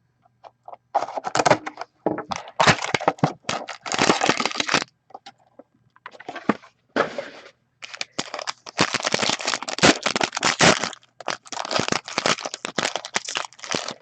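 Plastic shrink wrap crinkling and tearing in irregular bursts as a sealed trading-card box is unwrapped and opened by hand.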